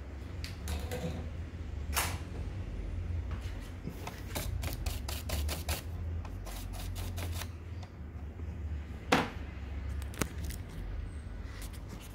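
Irregular clicks and light taps of small hard objects being handled, over a steady low hum; one sharper click about nine seconds in.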